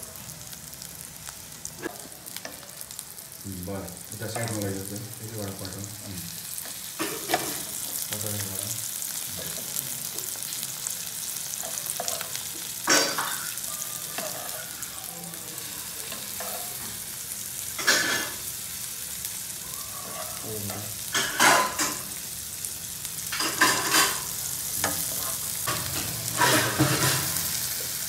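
Paneer pieces sizzling steadily in hot oil in a nonstick frying pan. A metal spoon turns them, with several sharp scrapes and knocks against the pan in the second half.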